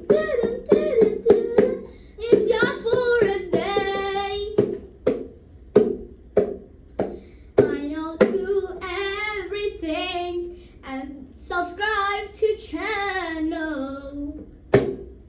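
A child singing, a girl by the video's title, in sung phrases with pauses between them, over steady hand claps a little under two a second.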